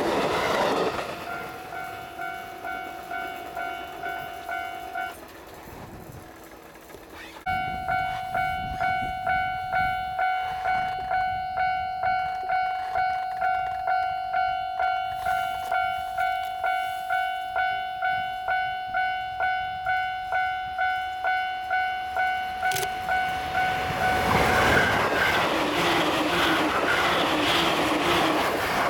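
Railway level-crossing warning bell ringing at about two dings a second. It stops briefly and starts again about seven seconds in. Near the end a JR E653-series express electric train runs past close by, and its running noise covers the bell.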